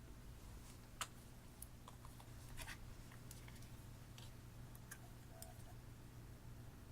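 A few faint, scattered small clicks and taps, the sharpest about a second in and a little cluster around the middle, over a low steady hum.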